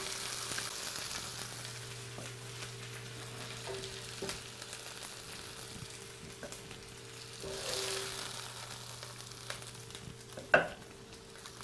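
Browned lamb knuckles, onion and garlic sizzling steadily in a hot frying pan, with a few short knocks of tongs and meat as pieces are lifted into a ceramic slow cooker pot, the sharpest about ten seconds in. A steady low hum runs underneath.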